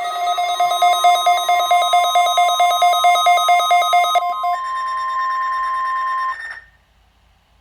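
Loud electronic alarm sounding a rapid pulsing warble of several tones. About four seconds in it changes to a steadier tone with a hiss over it, then cuts off suddenly near the end.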